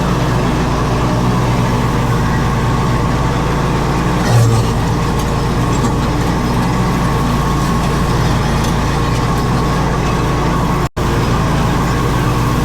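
Zero-turn riding mower's engine running steadily under mowing load, broken by a momentary gap near the end.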